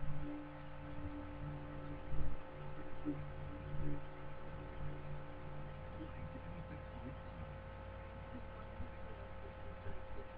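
Steady electrical hum with several constant tones on top, the background noise of the recording setup, with a soft low bump about two seconds in.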